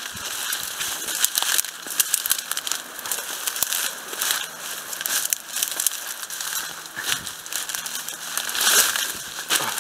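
Dry twigs and dead bramble stems crackling, snapping and rustling as someone pushes through dense dry undergrowth, an irregular run of sharp crackles.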